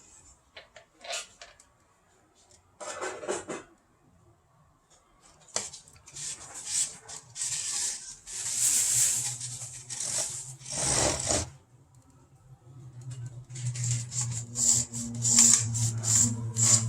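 Hard plastic tower-fan parts being handled: clicks, knocks and short rubbing or scraping sounds. A steady low hum comes in about eight seconds in and grows stronger toward the end.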